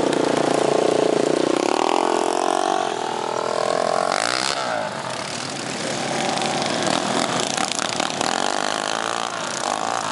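Engines of racing ride-on lawn mowers running hard, the pitch rising and falling as the drivers accelerate and ease off through the turns. Loudest in the first couple of seconds, then a little quieter.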